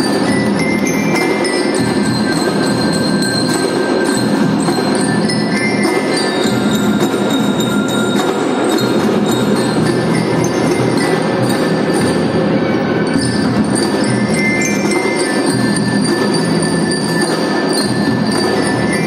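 Kindergarten drum band playing a tune, with bright, ringing metal bell tones standing out over the ensemble. The music runs steadily without a break.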